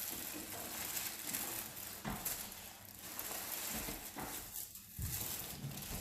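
Faint rustling and handling noise over a steady hiss, with a soft bump about two seconds in and another near five seconds.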